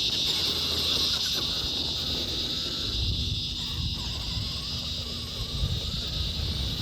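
Insects chirring in a steady, unbroken high-pitched drone, over a low irregular rumble.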